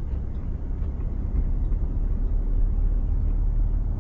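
Steady low rumble of engine and road noise inside the cab of a Ford Transit Custom camper van driving slowly along.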